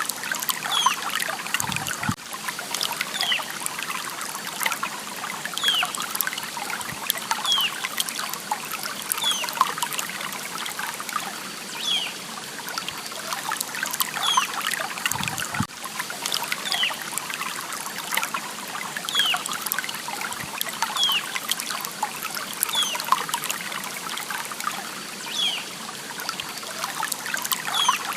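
Water trickling and splashing over stones in a small stream, a steady rushing. A short, high, falling chirp repeats about every second and a half over it.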